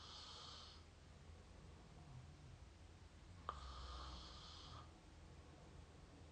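Faint, up-close mouth snoring of a sleeper. Each breath opens with a sharp mouth click and goes on as an airy breath with a low rumble under it. One breath trails off at the start, and a full one comes about three and a half seconds in, lasting about a second and a half.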